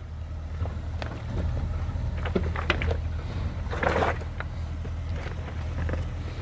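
Range Rover Sport crawling over loose rock: a steady low engine rumble with scattered crunching and knocking of stones under the tyres. A louder patch comes about four seconds in.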